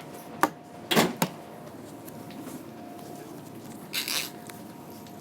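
Checkout counter handling sounds during a payment: a few sharp clicks and knocks, the loudest about a second in, then a short rustle about four seconds in, over a faint steady hum.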